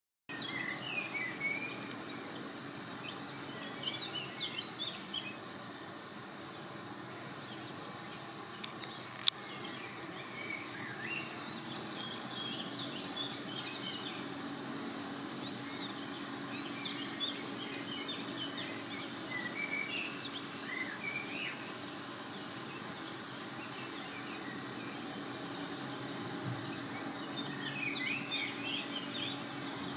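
Small songbirds chirping and singing in short, scattered phrases over steady outdoor background noise with a low hum. One sharp click sounds about nine seconds in.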